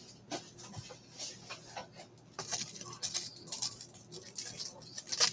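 Rigid plastic top loaders and card packaging being handled on a table: a string of small, irregular clicks and rustles.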